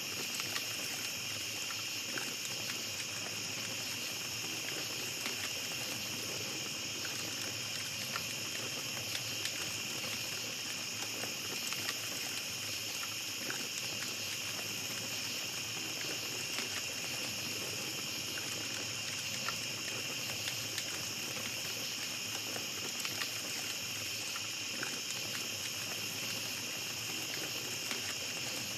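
Small campfire crackling, with scattered small pops, over a steady high chorus of night insects.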